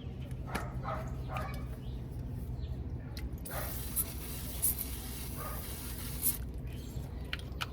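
A dog barks and whimpers a few short times within the first second and a half. Then an aerosol spray hisses for about three seconds, in a few spurts.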